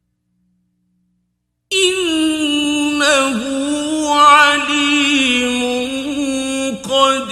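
Melodic Quran recitation by a solo male voice in drawn-out tajweed style: after a pause, a long held, ornamented note begins about two seconds in, wavering and sliding through melismatic turns, with a brief break shortly before the end.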